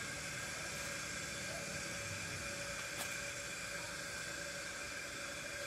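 Steady background hiss with a few faint steady tones running through it, and a single sharp click about three seconds in.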